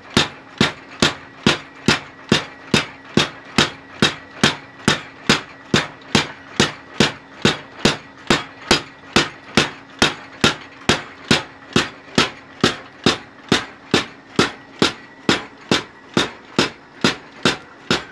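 Homemade power hammer pounding a red-hot khukuri blade on its anvil in a steady rhythm of about two and a half blows a second, with a steady hum from its drive motor underneath.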